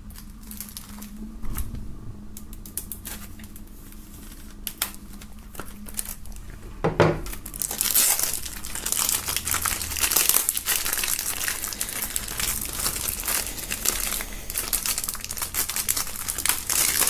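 Clear plastic shrink-wrap film being slit and peeled off a CD jewel case. A few faint clicks and scratches come first, then from about halfway on the film crinkles and crackles steadily.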